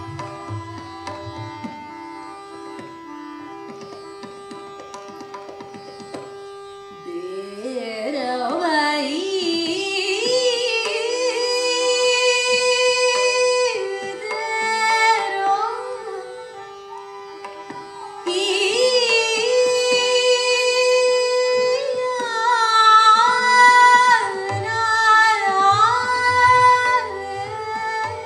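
Hindustani classical singing: a woman's voice enters about a quarter of the way in and sings two long phrases of held notes and sliding ornaments over a steady tanpura drone. Tabla plays briefly at the start and again near the end.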